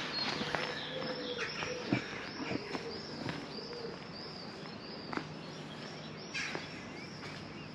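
A small bird repeating a short high chirp about twice a second, over footsteps on stone paving.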